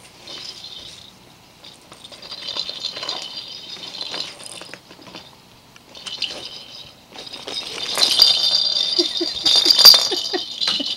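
Crinkly plastic bag rustling and small toy balls rattling against each other as a ferret burrows into the bag and pulls at it. The sound comes in scrabbling patches and is loudest near the end.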